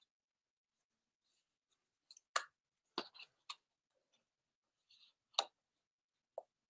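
Watch-band packaging being picked and torn open by hand and teeth: a few faint, irregularly spaced sharp clicks and crackles, about half a dozen in all.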